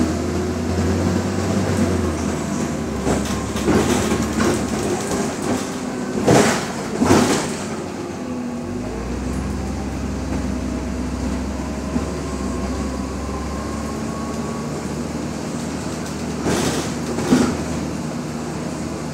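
Cabin of a BredaMenarinibus Monocar 231 natural-gas city bus under way: a steady engine drone with road and body noise, the engine note shifting a couple of times. Two pairs of short bursts of noise stand out, one about six seconds in and one near the end.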